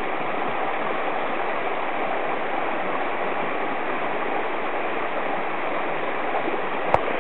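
Swollen mountain stream rushing steadily over rocks, running high. A single sharp click near the end.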